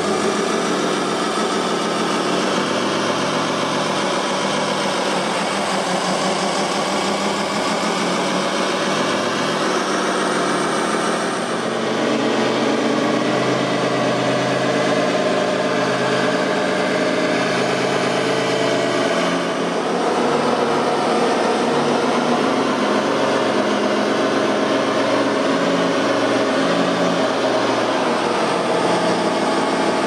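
RC model wheel loader with its engine running steadily, shifting slightly in pitch and level as it drives and works.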